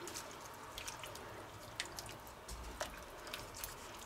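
A wooden spatula stirring vegetables in a thin sauce in a pan, faint wet squishing with scattered small pops and clicks from the simmering sauce.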